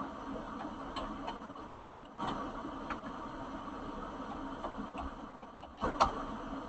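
Steady low background hum with a handful of scattered clicks and knocks; the loudest knock comes about six seconds in.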